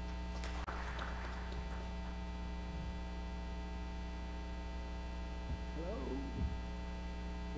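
Steady electrical mains hum with many evenly spaced overtones; a faint voice sounds briefly near the end.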